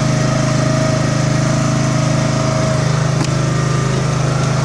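Small engine running steadily at constant speed aboard a small fishing boat during longline hauling, a low, fast-pulsing drone with a steady whine above it. A single short click about three seconds in.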